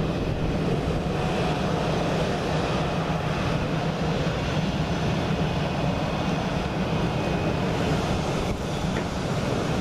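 Airbus A320's twin jet engines running at low taxi power as the airliner rolls along the taxiway, a steady, even engine noise.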